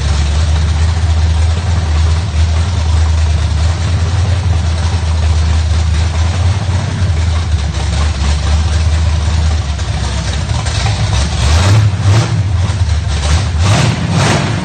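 A 350 small-block Chevy V8 with open headers and a 750 cfm Edelbrock carburetor running loud and steady at idle on its first start-up. About eleven seconds in, the revs rise, and near the end the throttle is blipped several times in quick succession.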